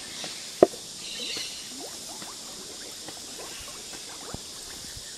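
Water on a crude-oil-slicked surface being disturbed: small drips and plops, with one sharp knock about half a second in.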